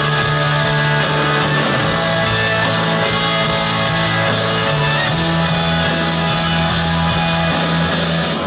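Live band music played loud through a concert PA, heard from the audience: electric guitar, bass and drums.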